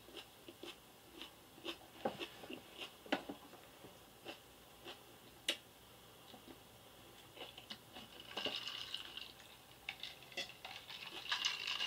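A person chewing a mouthful of raw onion: faint, scattered crunches and clicks. Near the end come softer sipping sounds from a drink.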